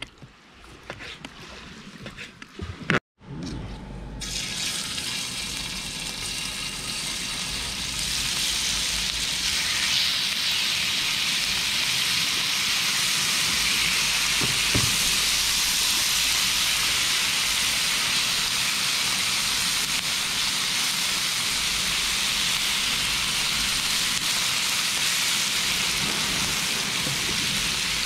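Pieces of lobster meat sizzling on a hot electric griddle: a steady hiss that begins about four seconds in and grows louder about eight seconds in. Before it, a few faint knocks of a knife cutting meat on a plastic board.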